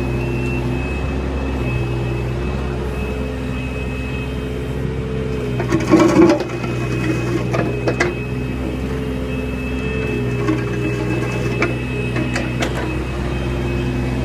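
Mini excavator's diesel engine running steadily with a thin high whine over it as the boom and bucket work. Around the middle a louder burst of scraping and clanking with a few sharp knocks, as the bucket moves dirt.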